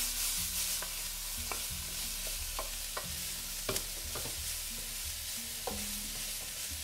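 Shredded cabbage, carrots and peppers sizzling in a stainless steel wok while a wooden spatula stirs and tosses them, with irregular knocks and scrapes of the spatula against the pan over a steady hiss.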